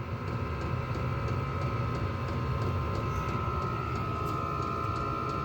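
Vevor 8 kW diesel heater running steadily on half power: a low blower hum with a constant whine, and faint regular ticks.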